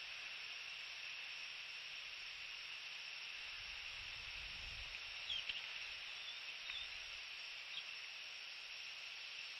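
Faint, steady high hiss of an outdoor night nest-cam microphone. A soft low rustle near the middle, as the incubating bald eagle shifts on the nest, is followed by a few short high chirps.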